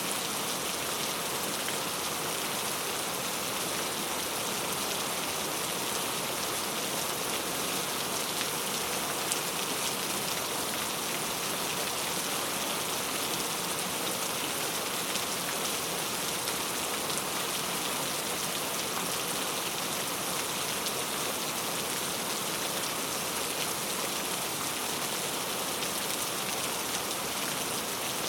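Heavy, loud rain falling steadily, a dense hiss of drops with fine patter, unchanging in strength.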